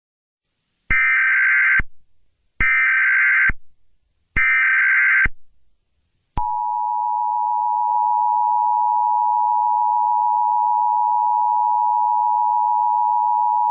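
Emergency Alert System tones: three bursts of SAME header data, each about a second long with short gaps between them. About six seconds in, the steady two-tone EAS attention signal starts and holds.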